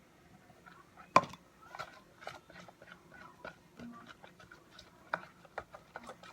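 Spoon stirring still-sticky slime of glue and Gain laundry detergent in a plastic tub: irregular wet clicks, two or three a second, with one sharp knock about a second in.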